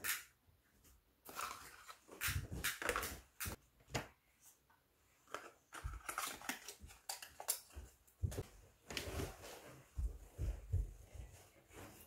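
Light plastic clicks and cardboard rustling as a small battery-powered package heat sealer is taken out of its box and handled, with scattered soft knocks on a desk.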